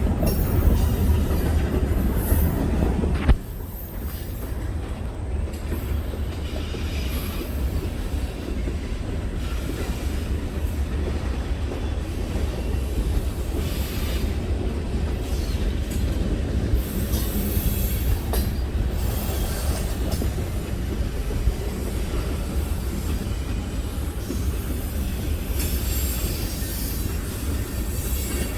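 Freight train rolling past: railcar wheels clattering on the rails, with high wheel squeal coming and going. A louder low rumble drops away suddenly about three seconds in.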